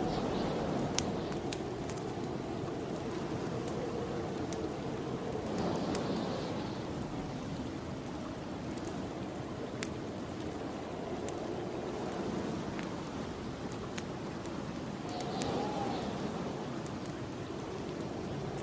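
Snowstorm wind blowing steadily, swelling in gusts about six seconds in and again near the end, over the sharp pops and crackles of a wood fire in a fireplace.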